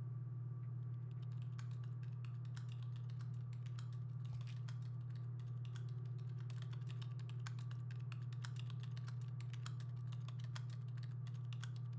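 Typing on a laptop keyboard: quick, irregular keystrokes starting about a second in, over a steady low hum.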